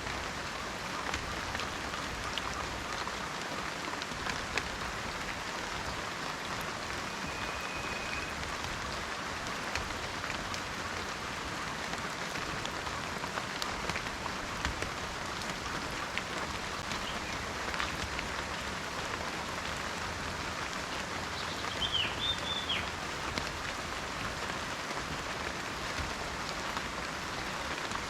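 Steady rain falling in a forest, an even hiss with scattered individual drops. A short thin whistle sounds about seven seconds in, and a bird gives a few quick chirps about two-thirds of the way through.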